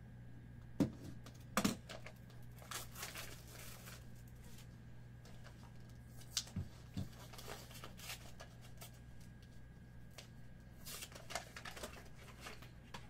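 Handling of a small cardboard trading-card box and its packaging: paper and cardboard rustling, sliding and tearing in several short spells, with a few sharp taps, two of them close together about a second and a half in and two more just past halfway. A faint steady low hum runs underneath.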